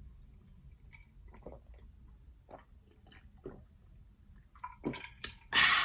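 Close-up mouth sounds of someone drinking Polar seltzer water: faint swallowing clicks about once a second, then a few louder ones and a short loud rushing sound near the end.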